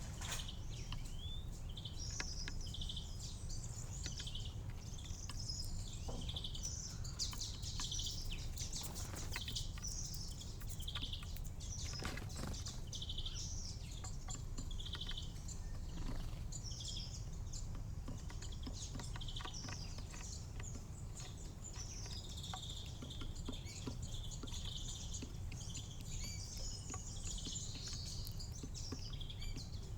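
Small songbirds at a garden feeder giving many short, high chirps and twitters, close together and overlapping, with a few faint clicks, over a steady low background rumble.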